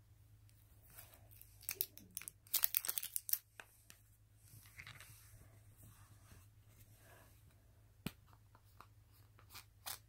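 A plastic supplement bottle handled up close, with tearing and crackling: a dense run of sharp crackles about two seconds in, then softer rustling and a few single clicks near the end.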